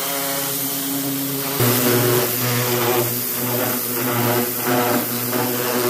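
Pressure washer running, its motor-driven pump humming under the hiss of a high-pressure water jet blasting loosened paint and rust off the bare steel of a chemically dipped 1966 Chevrolet Chevelle body. The sound changes abruptly about a second and a half in.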